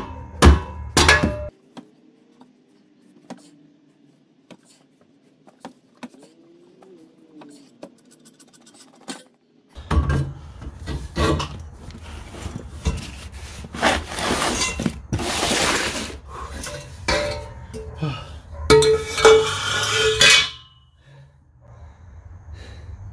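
A rubber mallet strikes a Saab 9-3's aftermarket steel exhaust pipe a few times in the first second or so. From about ten seconds in, metal clinks, scrapes and rattles come for about ten seconds as the pipe section is worked loose by hand.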